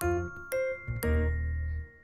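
Background music: a light keyboard tune, notes struck about every half second over low bass notes.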